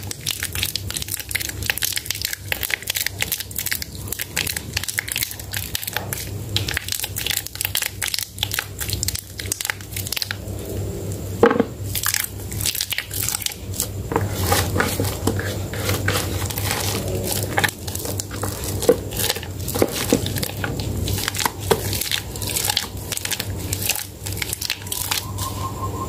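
A water-soaked bar of Medicare white soap being squeezed and crushed by plastic-gloved hands in a plastic basin: a dense, continuous run of wet crackles and squishes, with one louder crunch about halfway through.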